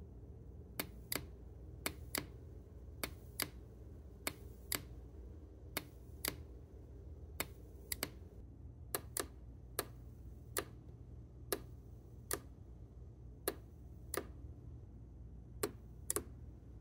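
Opened 5V DPDT electromechanical relay switching on and off: sharp clicks as the armature pulls in and the spring-loaded contacts snap over and back, often in pairs about a third of a second apart, over a faint steady low background.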